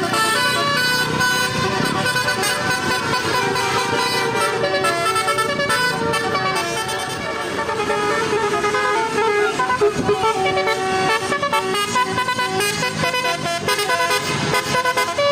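Bus basuri horn, a multi-trumpet musical horn, playing a tune: a continuous run of short held horn notes stepping up and down in pitch.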